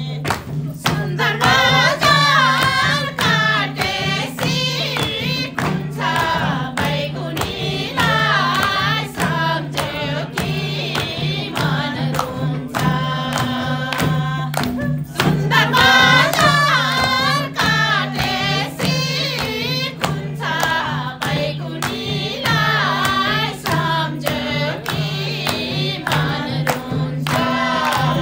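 Nepali dohori folk song sung by a group of voices in repeated phrases, over a steady low drone and a steady beat.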